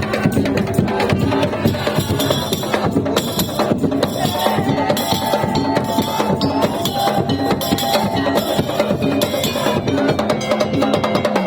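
Madurese tong-tong (daul) percussion ensemble playing: dense, fast strokes on wooden slit drums and drums, with held melodic tones sounding over them.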